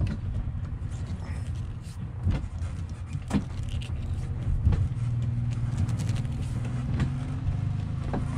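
MerCruiser 6.2 L stern-drive engine idling with a steady low hum, with scattered clicks and jangling keys as the steering wheel is turned hard to port.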